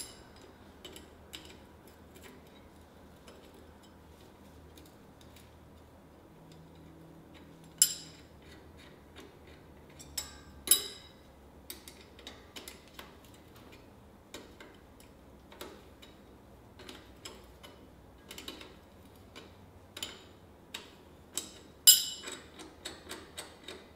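Scattered metallic clicks and taps of a hand wrench working the lock nut and adjuster nut on an ATV's parking brake, irregularly spaced, with a few sharper clinks spread through.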